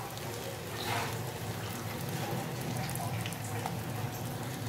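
Mashed-potato ring deep-frying in hot oil: a steady sizzle of fine crackling bubbles.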